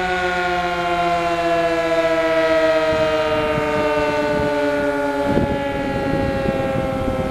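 Sentry 20V2T two-tone outdoor warning siren winding down, its chord falling slowly and steadily in pitch.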